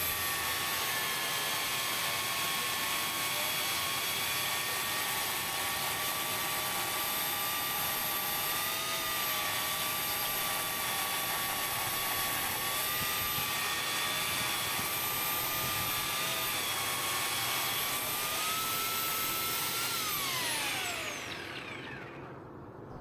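AL-KO EKS 2000/35 electric chainsaw cutting through a solid oak log: a steady motor whine with the rasp of the chain, its pitch wavering slightly under load. About twenty seconds in the pitch climbs a little, then the motor is released and its whine falls away as it spins down.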